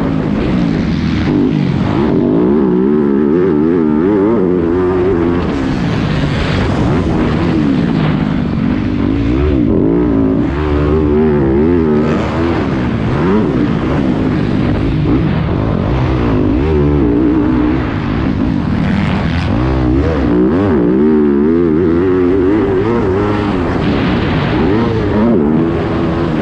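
Yamaha YZ250F's 250 cc four-stroke single-cylinder engine at race pace, heard up close from the bike, revving up and dropping back over and over as the rider accelerates, shifts and rolls off the throttle.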